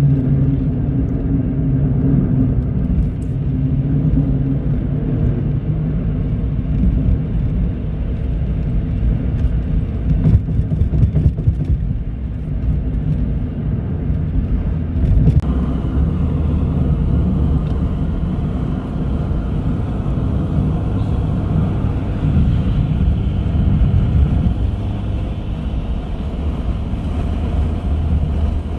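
A car driving along a highway: steady, loud low rumble of road and engine noise. About halfway through the sound changes suddenly and more hiss comes in.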